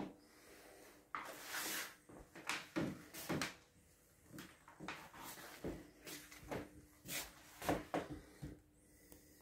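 A run of irregular knocks, rustles and clatters from a door and a window being handled and someone moving about the room, over a faint steady hum.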